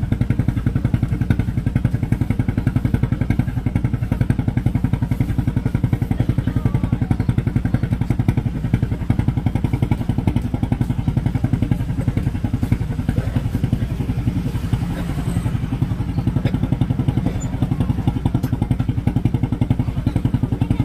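A boat engine idling with a fast, even chugging that holds steady throughout.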